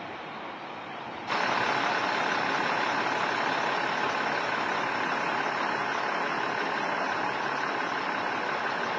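Fire engine running at idle close by: a loud, steady engine noise that starts suddenly just over a second in and drops away near the end.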